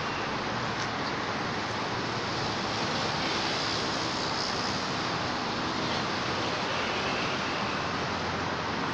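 Steady rushing background noise, even throughout, with a few faint clicks.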